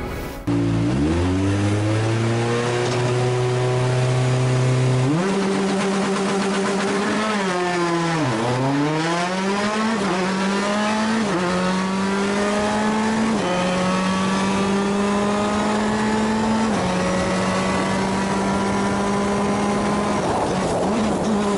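Rally car engine heard onboard under hard acceleration, its revs climbing and stepping with each gear change. About eight seconds in the revs fall steeply and climb again as the car slows and drives back out.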